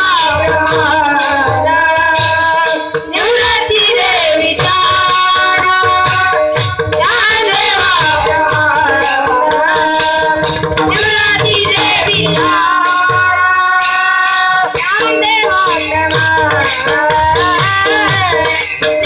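A boy singing a Marathi devotional song in long held, ornamented notes, accompanied by pakhawaj drum strokes and a steady jingling percussion beat.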